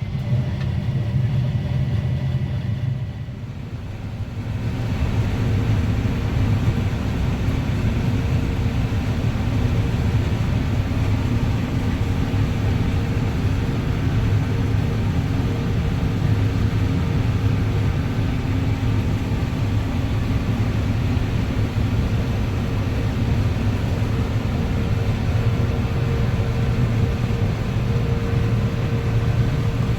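Combine harvester engine running steadily under load. Its rumble dips and shifts in pitch about four seconds in, then holds steady.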